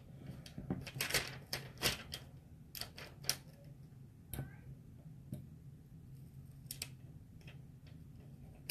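Irregular small clicks and taps of a pointed weeding tool against a glass mason jar as glitter vinyl lettering is pressed down, busiest in the first few seconds.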